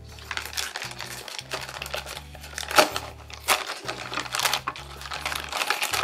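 A metallic anti-static plastic bag crinkling and rustling as it is handled and opened, in irregular crackles, over background music with a low bass line.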